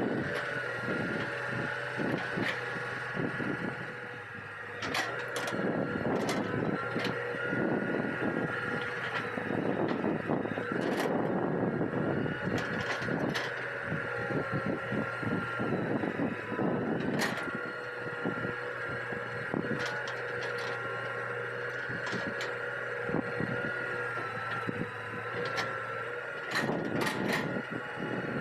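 Hitachi EX200 hydraulic excavator working: its diesel engine runs steadily under a constant high whine, with irregular clanks, knocks and scraping bursts from the machine at work.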